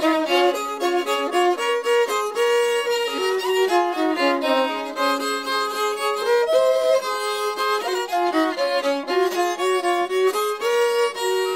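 Instrumental background music: a fiddle playing a melody, the notes changing steadily throughout.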